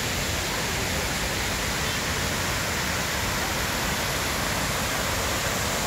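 Steady rush of water cascading down the granite walls of a 9/11 Memorial reflecting pool.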